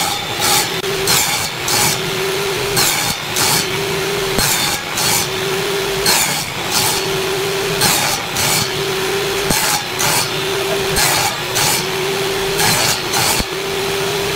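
Table saw cutting a pine board in quick repeated passes. A rasping cut comes about every second over the saw's steady running tone.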